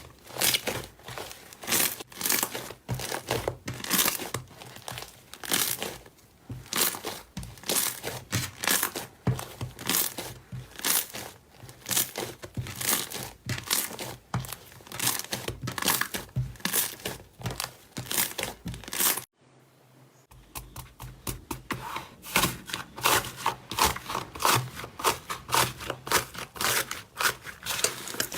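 Slime being squeezed and stretched by hand, giving repeated crackling, popping squelches about one or two a second. After a brief gap about two-thirds through, the crackles come quicker and closer together.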